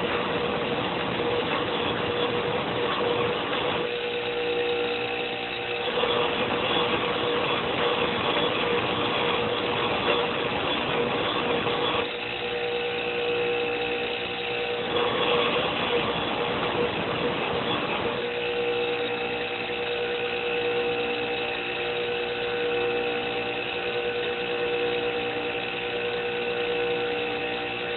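Electric grinder motor running steadily while the jaws of a pair of side cutters are pressed to the wheel in spells, each spell a harsh grinding of steel on the stone. The grinder spins freely between spells, about four to six seconds in, again from about twelve to fifteen seconds, and through the last ten seconds or so.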